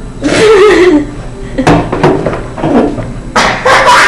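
Young women's voices: a drawn-out wavering sound that falls in pitch, lasting under a second, then a few short vocal sounds and, near the end, a louder run of breathy outbursts.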